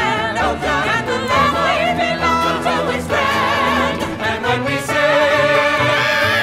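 Music from a stage musical: several voices singing over instrumental accompaniment with a steady bass.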